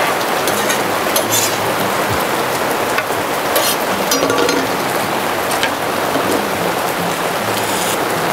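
Heavy rain pouring steadily, with occasional sharp taps and clinks of drops striking hard surfaces.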